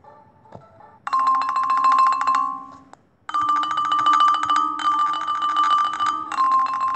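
Background music from a children's Bible story app, coming in short phrases with brief gaps and starting about a second in.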